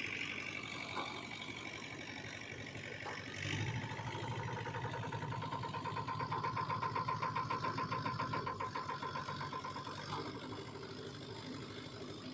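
Diesel engine of heavy machinery running. About three and a half seconds in it picks up, with a steady whine and a pulsing beat, then settles back about ten seconds in.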